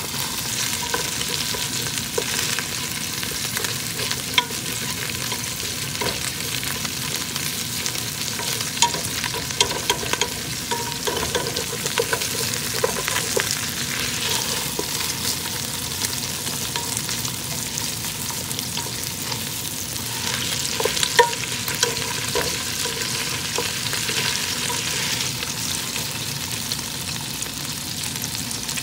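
Whole tilapia frying in hot oil in a pot: a steady sizzle with scattered pops and crackles. A wooden spatula now and then knocks and scrapes against the pot as the fish is turned, most often around the middle and again a little over two-thirds of the way in.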